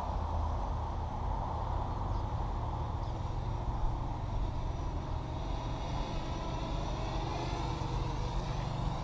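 FPV racing quadcopter in flight, its motors whining and gliding up and down in pitch with the throttle over a steady rumble of wind noise.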